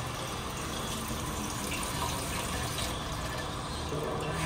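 Tap water running steadily from a sink faucet into a small stainless steel tank, filling an ultrasonic (sonication) cleaning bath with water.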